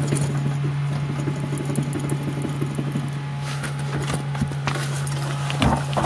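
Quick, irregular rattling and knocking from the rear left corner of a Proton Persona, with heavier knocks in the second half, over a steady low hum. It is the car's rear-left knock, caused by a loose brake caliper.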